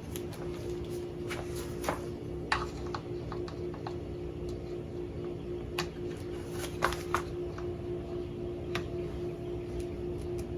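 Scattered light clicks and taps of hands working a new starter rope through the pulley of an outboard's rewind starter, over a steady low hum.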